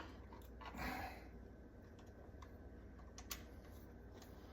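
Faint, scattered small clicks and taps of a wall outlet and its wires being handled after they are disconnected, with a soft rustle about a second in.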